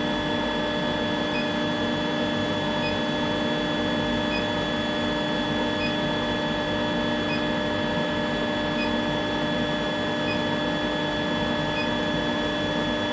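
Induction heater running with a steady electrical hum and whine of several held tones, heating a bar for hot cutting, with a faint short pip about every second and a half.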